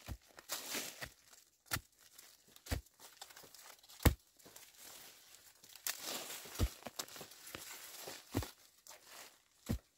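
Dry leaves and brush rustling and crackling, with about eight irregular sharp knocks and thuds; the loudest knock comes about four seconds in.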